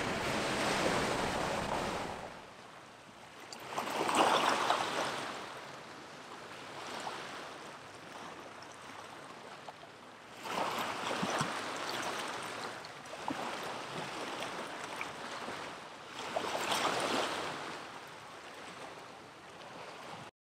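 Sea waves breaking and washing ashore: a rush of surf that swells and falls back every five or six seconds, loudest about four seconds in. It cuts off abruptly just before the end.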